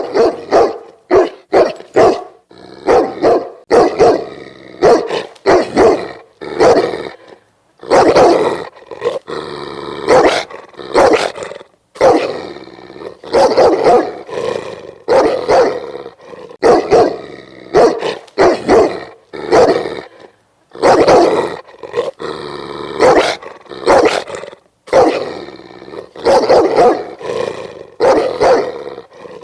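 Large dog barking angrily and repeatedly in quick, irregular volleys, with growling between some of the barks.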